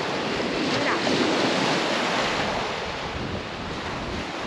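Sea surf washing up a beach, swelling slightly about a second in and then easing, with wind on the microphone.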